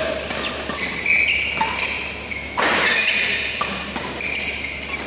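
Badminton shoes squeaking repeatedly on the court mat as players move, with a short rush of noise about two and a half seconds in.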